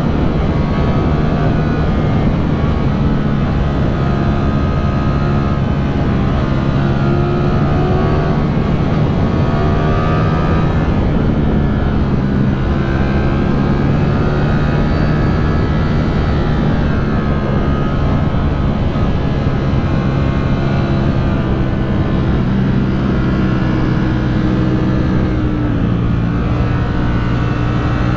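2021 Ducati Streetfighter V4's 1103 cc V4 engine running under load while riding through bends, the revs holding fairly steady with small rises and drops in pitch as the throttle opens and eases.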